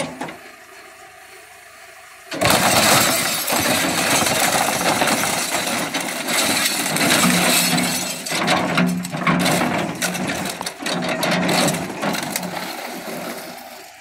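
A John Deere 410 backhoe's bucket crashes down on a rear-projection TV about two seconds in, cracking the plastic cabinet and breaking its screen and glass. Crunching, cracking and clinking go on as the bucket crushes the wreckage, with a steady hum from the backhoe under it in the second half.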